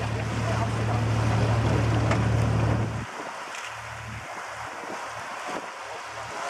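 A boat's engine running with a steady low hum over rushing water and wind. About three seconds in the engine hum drops away, leaving gusty wind on the microphone and the wash of water.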